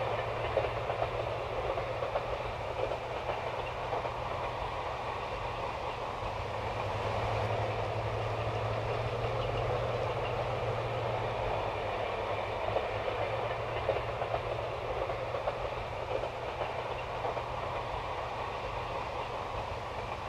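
NSWGR 59 class steam locomotive 5910 hauling a long passenger train, heard from a distance: a steady running noise of the train on the rails, with a few scattered clicks and no whistle.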